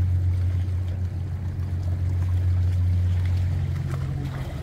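Steady low hum of a boat's engine running somewhere in the harbour.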